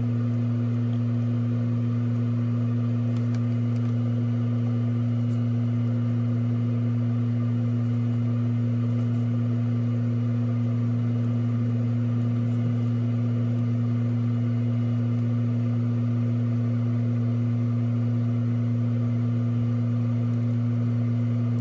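A steady low electrical hum that does not change.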